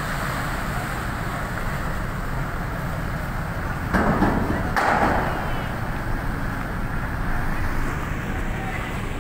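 Steady low rumble and harbour noise around a large ship pressed against the quay, with two short, loud, noisy bursts about four and five seconds in.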